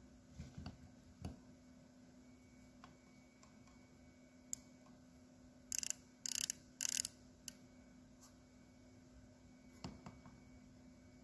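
Outside micrometer's ratchet stop clicking in three short runs of rapid clicks about six to seven seconds in, as the spindle is closed onto a piston skirt; the ratchet slipping means the set measuring pressure has been reached. A few faint single clicks of the tool being handled come before and after.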